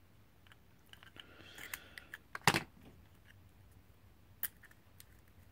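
Small plastic-and-metal handling sounds as the aluminium LED board is worked out of a small LED bulb's plastic housing: light scraping, then one sharp click about two and a half seconds in and a softer click later.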